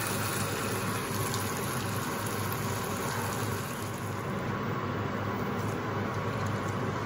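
Marinated chicken sizzling in a pan of hot spiced masala, a steady hiss.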